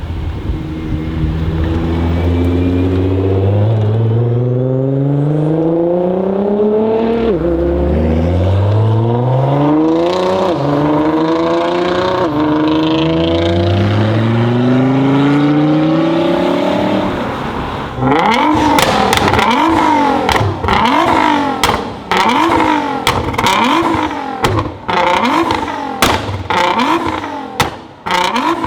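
Tuned 680 hp Nissan GT-R R35's twin-turbo V6 accelerating hard, its pitch climbing and dropping back at each of several gear changes. About two-thirds of the way in it switches to a run of quick revs, broken by many sharp pops and bangs from the exhaust.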